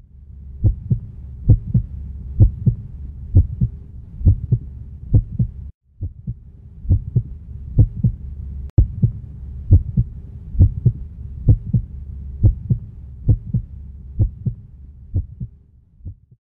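Heartbeat sound effect: paired low thumps, lub-dub, a little faster than one pair a second, over a low steady hum. It breaks off for a moment about six seconds in and fades out near the end.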